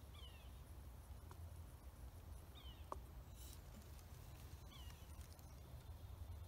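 Near silence with a low, steady rumble, broken three times by a bird's short falling chirp, about two seconds apart.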